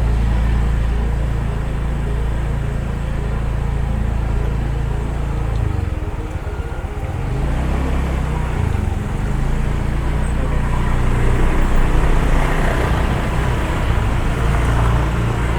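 Engine and road noise of a slowly driven vehicle, heard from on board. The engine note steadies, drops and shifts about six to nine seconds in, then picks up again, and a louder hiss builds near the end.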